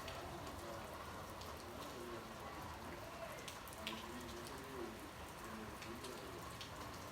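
Rain falling steadily, with scattered single drops ticking and splashing close by.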